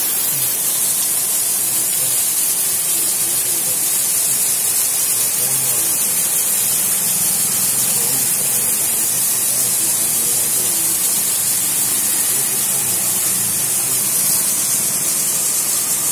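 Heavy monsoon rain pouring down, a loud, steady hiss of water with no let-up.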